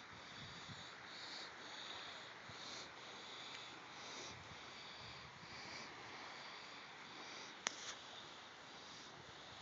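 Faint, steady outdoor hiss, with a single sharp click about three-quarters of the way through.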